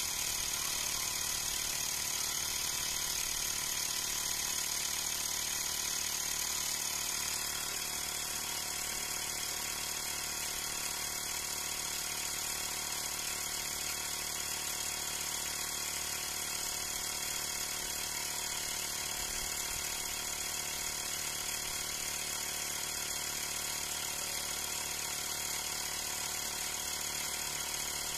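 Xiaomi Mi portable electric air compressor running steadily as it pumps up a car tyre, a continuous motor-and-pump buzz that drops slightly in level about seven seconds in.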